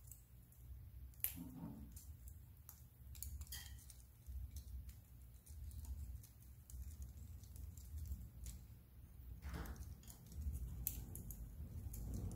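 Cockatiels moving about their cage: faint, scattered clicks and crackles of beaks and claws on wooden perches and toy strips, over a steady low hum.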